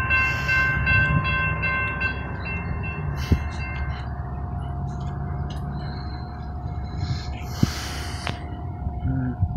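CSX freight train rumbling through a grade crossing. A chord of high steady warning tones sounds over the rumble and dies away in the first few seconds, leaving the rumble, a lower steady tone and a couple of sharp metallic clanks.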